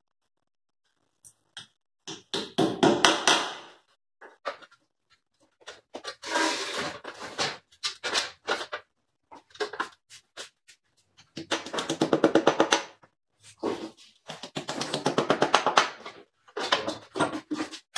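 Hammer tapping 8 mm plastic wall plugs into holes drilled in a tiled wall. There are five bursts of rapid light taps, each lasting a second or two, with short pauses between them.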